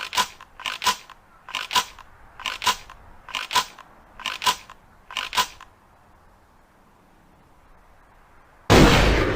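Ithaca Model 37 pump-action shotgun being handled: about seven pairs of sharp metallic clicks from its action, roughly a second apart, then a quiet pause and a single loud shot near the end that rings on.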